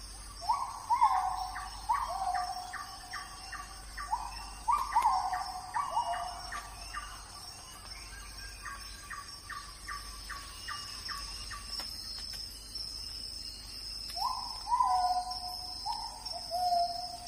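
Birds calling: groups of short rising whistled notes and quick chirps, over a steady high-pitched whine. The calls stop for a couple of seconds after the middle and start again near the end.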